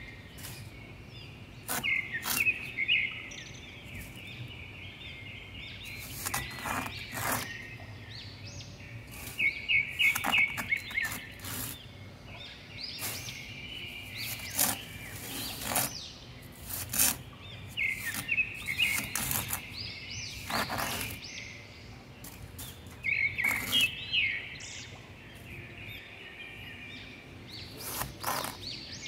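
A small toy shovel scraping and digging into damp sand in short gritty strokes, again and again. Birds chirp in quick trills every few seconds behind it.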